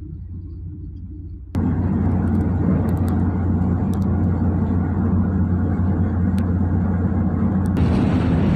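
Running noise of a moving train: a steady low rumble that jumps suddenly, about a second and a half in, to a much louder rumble and rattle with a few sharp clicks. A higher hiss joins near the end.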